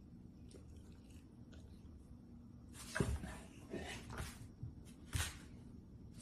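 Golden retriever moving its head and sniffing at a lemon wedge, heard as a few short, sharp noisy sounds in the second half after a quiet stretch.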